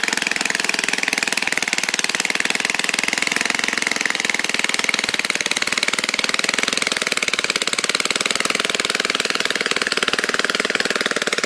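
Small engine of a 1950s Roto-Ette tiller running steadily under load, with a rapid even firing rhythm, as its tines dig through the soil.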